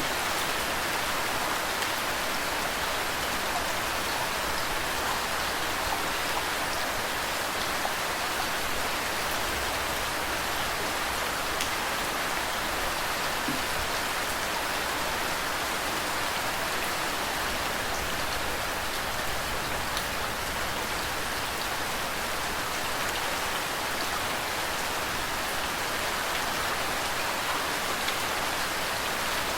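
Steady rain falling on a surface, mixed with flowing water: an even hiss with a few faint scattered drop ticks, no thunder.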